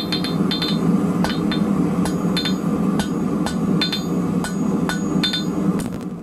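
Hand hammer striking hot 12 mm round steel bar on an anvil, about two blows a second, each with a short bright ring from the steel, while the end of a big ground anchor is drawn to a taper. A steady low rumble runs underneath.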